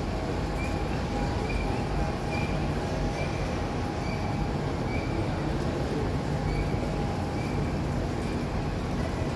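Busy railway-station concourse ambience: a steady hubbub of a crowd of passengers walking and rolling luggage under a large covered hall, with a faint short high squeak recurring irregularly about once a second.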